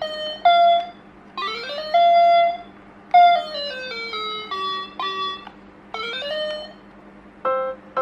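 Doraemon toy keyboard playing electronic beeping notes as its keys are pressed one at a time. A quick rising glide comes about a second and a half in, then a run of notes stepping down the scale. Near the end the notes take on a fuller, buzzier tone.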